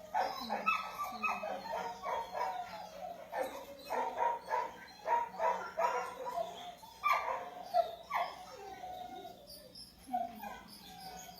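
A dog barking and whining in a quick, continuous run of short calls, some sliding down in pitch.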